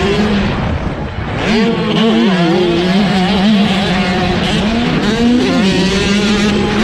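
125 cc motocross bike engines on the racetrack, their pitch rising and falling as the riders work the throttle.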